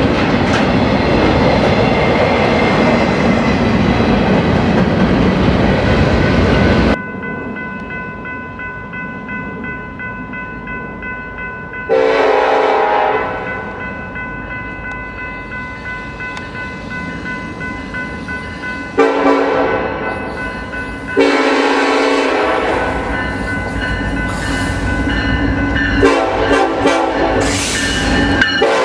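Nathan K5LLA five-chime air horns on freight locomotives sounding a series of blasts over the rumble and wheel clatter of passing trains. The sound jumps abruptly between recordings about seven seconds in, with fresh horn blasts starting near the middle and several times toward the end.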